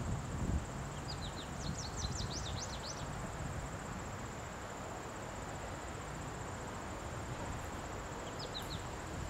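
Summer trackside ambience: an insect's steady high-pitched buzz throughout, a bird's quick run of falling chirps about a second in and a shorter one near the end, over a low steady rumble.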